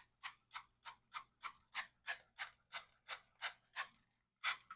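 Cooking-oil spray bottle spritzing into a skillet in quick, short squirts, about three a second, a dozen or so, with one louder squirt near the end.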